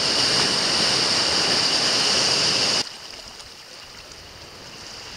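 Sea waves washing over a rocky shore, a steady hiss that suddenly drops to a much quieter level about three seconds in.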